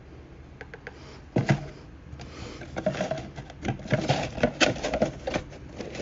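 Small cardboard box being handled and turned over: a sharp knock about a second and a half in, then a run of scraping and tapping against the cardboard.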